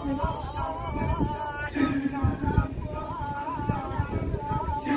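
Kecak chant: unaccompanied voices singing a wavering melody, with a held low note that recurs about two seconds in and again at the end.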